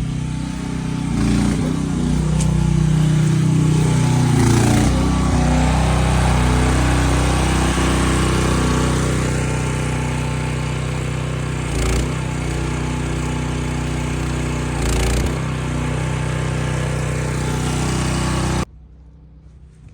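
A small engine running steadily, its pitch and loudness shifting during the first few seconds, with two short knocks later on. It cuts off abruptly about a second before the end.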